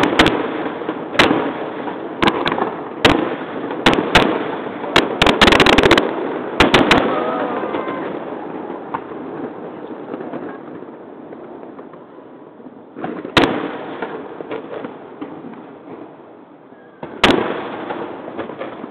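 Aerial firework shells bursting in a string of sharp booms. They thicken into a rapid volley about five seconds in, then thin out to two single booms after a lull, each booming fading away afterwards.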